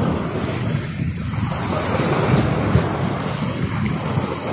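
Wind buffeting the microphone in uneven gusts, with the wash of sea water behind it.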